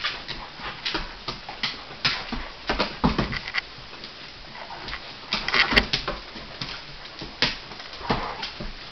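A Doberman at play, making irregular clicks and scuffs with its claws on a hardwood floor and its mouth at a bare foot, with a denser, louder run of them a little past halfway.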